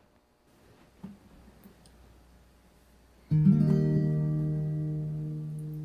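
An acoustic guitar strums a single chord about three seconds in and lets it ring, slowly fading: the opening chord of a hymn accompaniment.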